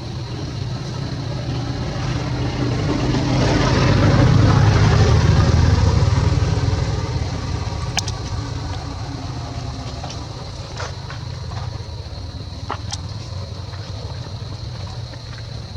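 A vehicle engine rumbling, swelling to its loudest about five seconds in and then fading as it passes. A few sharp clicks follow in the second half.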